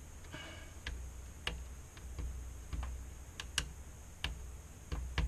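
Irregular small clicks and taps, about one or two a second, as fingers work at the backlight lamp wire connectors on an LCD monitor's inverter board, trying to pull them loose. A low steady hum runs underneath.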